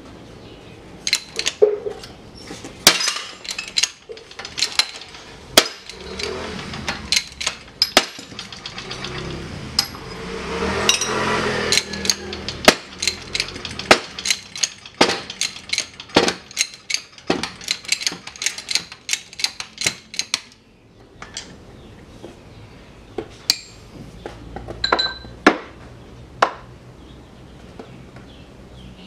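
Sharp metallic clicks and knocks come one to two a second as a shop press works on a Kawasaki Barako 175 crankshaft to press it apart. A rough grinding noise rises about ten seconds in. Near the end there are a few light metal clinks as the parts are handled.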